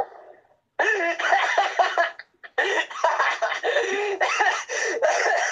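A person laughing hard, in two long stretches of voiced laughter with a short break between them, about a second and two and a half seconds in.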